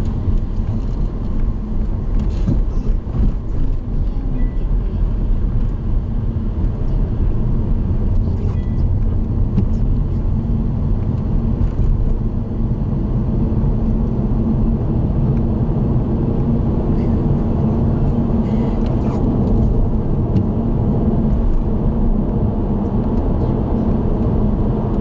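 Steady road noise of a car cruising on an expressway, heard from inside the car: a low tyre and engine drone with a constant hum.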